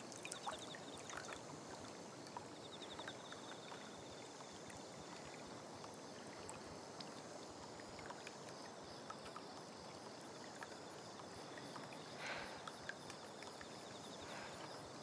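Faint night ambience: crickets chirping in rapid, even pulses over a quiet hiss, with scattered light drips and splashes of water.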